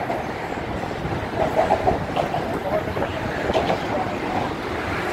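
A steady rumble and clatter of vehicle traffic on the bridge's roadway, mixed with the chatter of a crowd of pedestrians.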